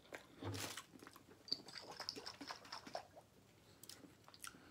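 Close-up mouth sounds of a person chewing smoked turkey leg meat: soft, wet and quiet. Near the end come a few small sharp clicks as a hot sauce bottle is opened.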